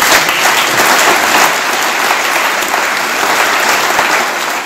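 Seated audience applauding: many hands clapping together in a dense, steady patter.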